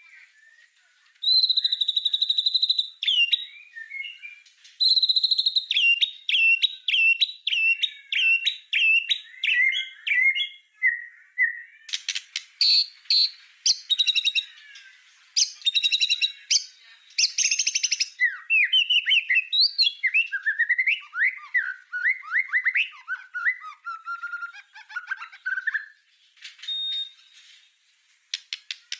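A white-rumped shama singing a varied, loud song. It has clear held whistles, runs of quick repeated notes, a stretch of sharp clicking 'shot' notes in the middle, and then rapid sliding notes.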